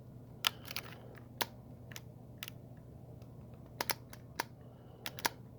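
Soldering gun held on the cut end of a plastic zip tie to melt it, with a steady low hum and about a dozen sharp, irregular clicks. The gun is not working well, so the melting goes slowly.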